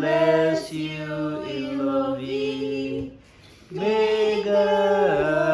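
Voices singing a birthday song unaccompanied, holding long notes of a sung blessing, with a short pause about three seconds in before the singing resumes.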